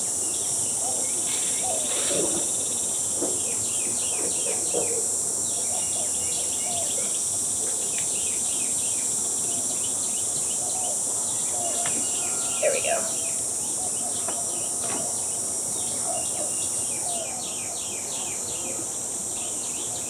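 A steady, high-pitched chorus of insects, with birds chirping over it. The insect drone drops a little near the end.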